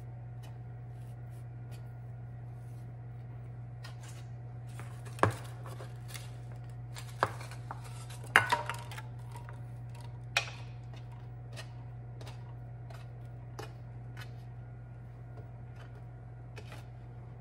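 Raw canned biscuits being pulled apart and set down on a metal baking sheet: light taps and clicks, with a few sharper knocks between about five and ten and a half seconds in. A steady low hum runs underneath.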